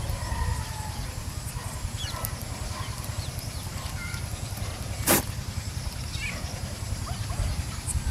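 Outdoor ambience: a low, fluctuating rumble like wind on the microphone, a few faint bird chirps, and one sharp click about five seconds in.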